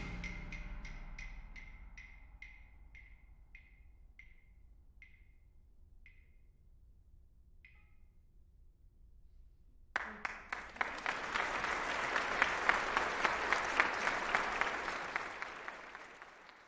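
The last sound of a percussion ensemble piece: the final loud hit dies away while a small high-pitched percussion instrument is struck about fifteen times, the strokes slowing and growing fainter until they stop about eight seconds in. After a short silence, audience applause breaks out about ten seconds in and fades near the end.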